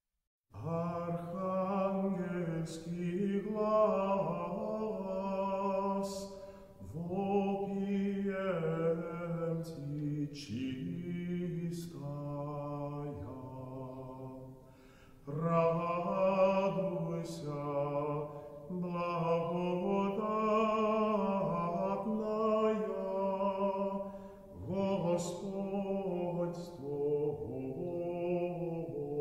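Orthodox church chant: voices singing slow, sustained phrases, with short breaks between them.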